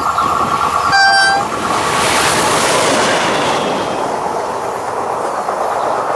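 Approaching locomotive sounds one short horn blast about a second in, then passes close by with a rising rush of wheel and rail noise that peaks a couple of seconds later and slowly fades.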